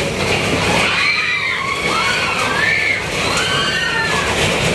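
Several shrill wails in a row, each rising and falling in pitch, over the steady noisy rumble of a horror-train dark ride moving through its tunnel.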